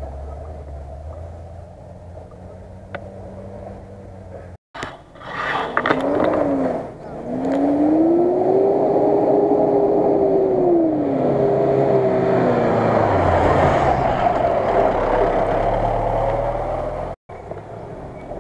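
Mitsubishi Pajero SUV's engine revving hard as it climbs a muddy track, its pitch rising, holding high, then dropping back while it keeps running loud. Before it, a fainter engine runs low and steady.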